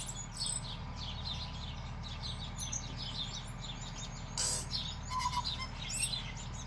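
Small birds chirping and twittering, many short high calls overlapping throughout, over a steady low hum. A brief scratchy noise about four and a half seconds in.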